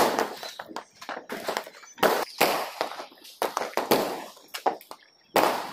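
Firecrackers going off one after another, a sharp bang about every second, each dying away quickly.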